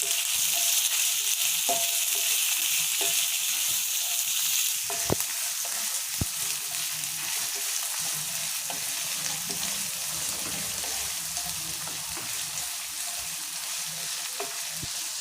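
Chopped onions sizzling in hot sesame oil in a cast-iron skillet as they are stirred, with scattered clicks from the stirring. The sizzle is loudest for the first five seconds or so, then eases a little.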